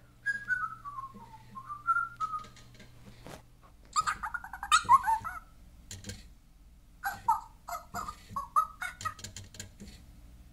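Fingerlings interactive baby monkey toy whistling a short tune through its small speaker, the pitch falling and then rising again. This is its bored signal after being left alone for a minute. Short chirpy sounds follow in two groups, with a few faint clicks.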